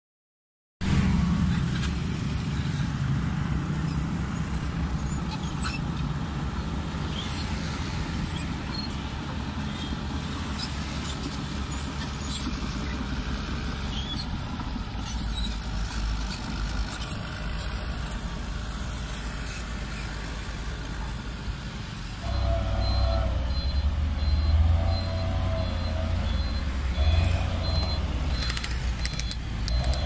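Diesel engines of heavy earthmoving equipment running: a CAT D6R bulldozer working the dirt track, then from about 22 seconds a louder, closer diesel engine of a Hino Ranger dump truck loaded with rocks, driving past.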